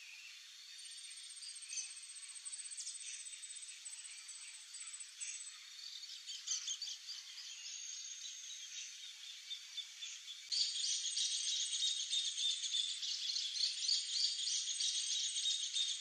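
High-pitched chirping and trilling of small birds and insects, a thin fast pulsing over scattered chirps. A denser, louder chorus of rapid chirps starts about ten seconds in.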